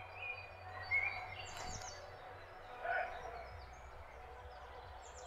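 Faint distant party music, mostly a low bass thud, under a few short songbird chirps.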